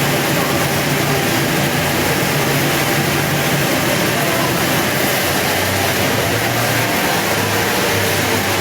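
An engine running steadily under a loud, even hiss, its low hum dropping slightly in pitch a little past halfway.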